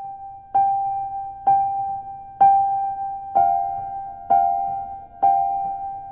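Soundtrack music: a piano striking the same single note about once a second, each note ringing and fading before the next. About halfway through, a second, slightly lower note joins in, and the two sound together on each strike.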